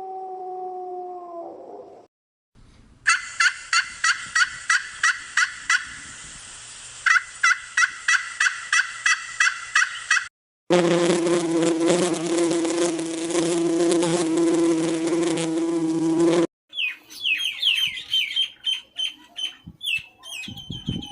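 A run of separate animal sound clips with abrupt cuts: a fading tonal call, then rhythmic chirping at about three pulses a second, then a loud steady buzz for about six seconds, then rapid high chirps like small birds or chicks.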